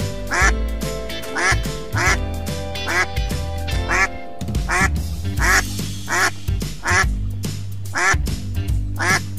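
Ducks quacking, about eleven short quacks spaced roughly half a second to a second apart, over background music.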